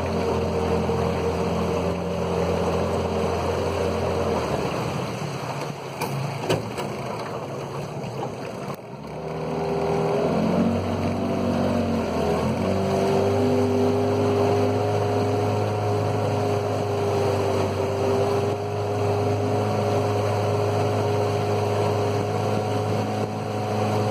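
A small boat's outboard motor runs steadily under way. It drops back to a lower, quieter note about five seconds in, then rises in pitch and picks up again around ten seconds.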